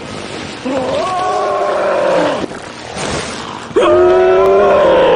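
Two long, pitched werewolf roars, each about two seconds, the second one louder.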